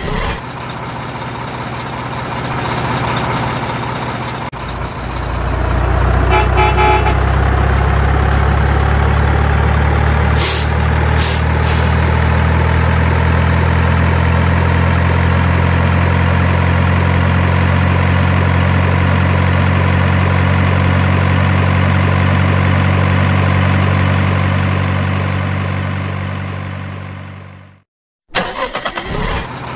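Heavy diesel truck engine running, with a whine that rises slowly as it pulls away and two short air-brake hisses about ten seconds in. It fades out near the end, and another sound starts just after.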